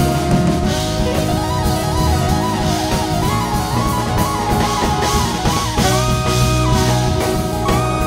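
Small jazz band of piano, saxophones, trumpet, guitar, bass and drums playing live: a quick, wandering melodic line over bass and drums, with long held notes coming in about six seconds in.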